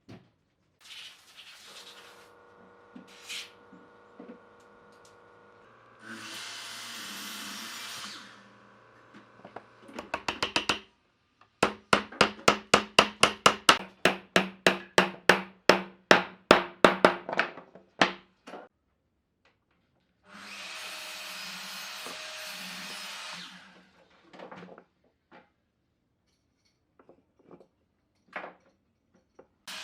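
Workshop tool work on wood: a quick, even run of sharp knocks, about three to four a second for several seconds, with a short steady burst of a power tool before it and another after it.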